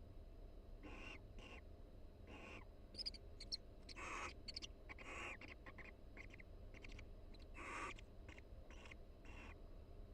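Barn owl pair giving a string of short, soft, raspy calls back and forth. A few sharp clicks come about three seconds in.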